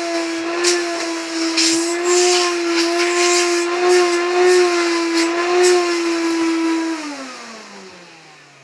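Hoover Turbopower 2 vacuum cleaner motor running with a steady, slightly wavering whine and irregular rattling clicks, then switched off about seven seconds in and winding down with falling pitch. The owner doesn't think it works as it should.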